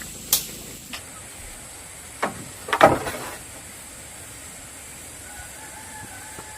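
A few short, sharp knocks or clatters over a steady low hiss, the loudest a quick cluster about three seconds in.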